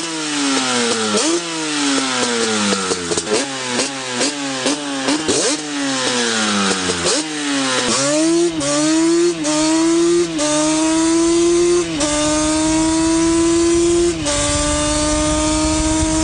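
Yamaha Banshee's twin-cylinder two-stroke engine on a custom exhaust, revved in quick throttle blips about once a second. From about halfway it is held at high revs, with brief dips that come further and further apart.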